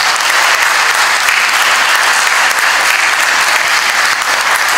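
Sustained applause from many people clapping together in a large legislative chamber, steady and unbroken.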